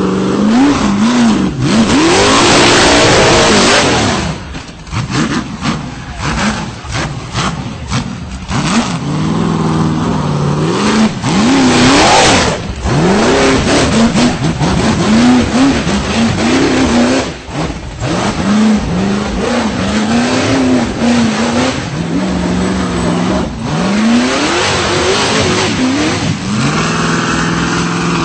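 V8 engine of a tube-chassis rock bouncer buggy revving hard and repeatedly under load, its pitch rising and falling again and again, with louder rushes of noise near the start and again about twelve seconds in.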